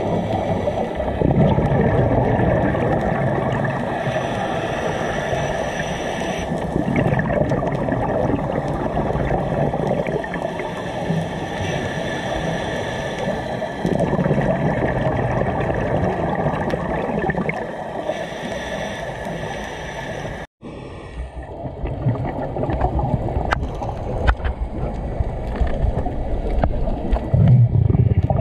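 Underwater sound of a scuba dive picked up through a camera housing: a steady rush of water with scuba regulator exhaust bubbles gurgling and swelling every few seconds. The sound cuts out for a moment about two-thirds of the way through.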